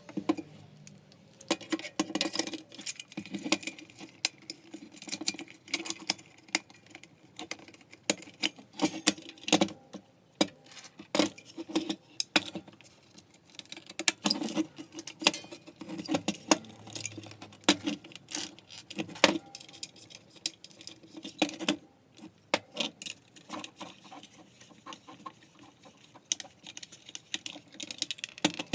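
Irregular clicking, tapping and light rattling of small parts being handled while a Makita 9901 belt sander is taken apart.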